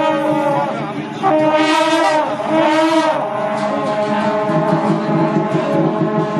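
Temple procession wind instruments blaring several long, sustained notes at different pitches together, with two swooping pitch bends about two and three seconds in.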